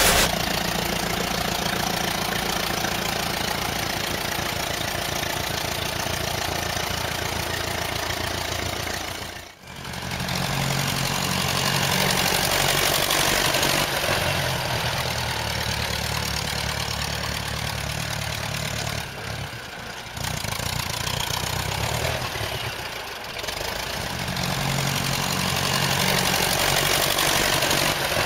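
Tractor engine running steadily, with a brief drop-out about ten seconds in before it picks up again.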